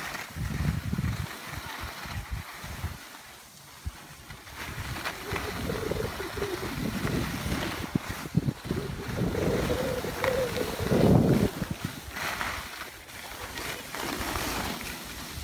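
Wind buffeting the microphone in uneven gusts while skiing downhill, over a steady hiss of skis sliding on snow.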